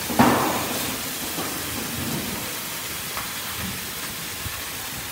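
Vegetables sizzling steadily in hot oil in a frying pan as they pan-sear, with one brief louder noise just after the start.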